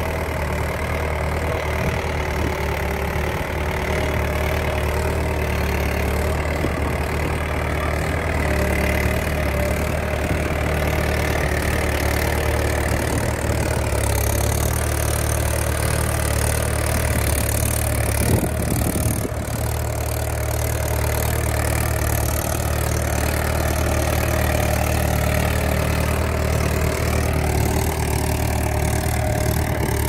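Farm tractor's diesel engine running steadily while pulling a mouldboard plough through the soil, with a brief change in the sound about two-thirds of the way through.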